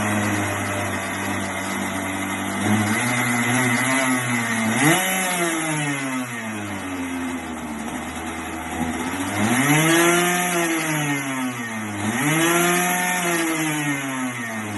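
Freshly rebuilt go-kart engine running on its first start after the rebuild, idling and being blipped up in revs and back down three times, about five seconds in, around ten seconds in and again near the end.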